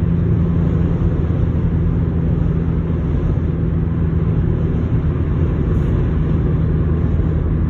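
Steady road noise inside a car's cabin at highway speed: a low, even rumble of tyres and engine with wind rushing against the car in strong wind.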